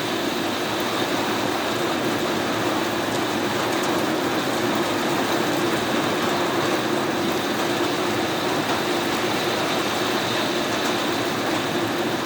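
Heavy downpour on a house: a steady, unbroken noise of rain with a low hum from the force of the rain.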